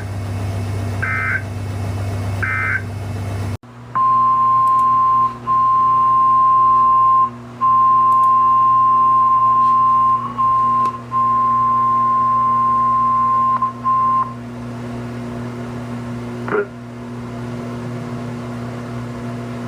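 Weather radio EAS broadcast: three short warbling data bursts of SAME end-of-message code, about 1.4 s apart. After a brief dropout, the loud steady 1050 Hz NOAA Weather Radio warning alarm tone sounds for about ten seconds with several short breaks, then gives way to steady receiver hum with a single click.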